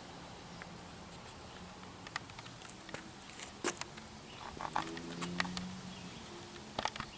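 Irregular light clicks and taps over a faint steady hiss, getting busier from about two seconds in.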